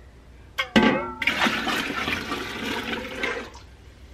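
Chicken broth poured from a metal stockpot into another pot, a steady splashing pour lasting about two seconds. It is preceded, just before a second in, by a knock and brief ring of the metal pot as it is lifted.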